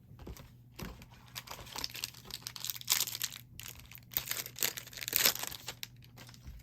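Foil wrapper of a trading card pack crinkling and tearing as it is handled and ripped open: a run of uneven rustles, loudest about three seconds in and again a little after five seconds.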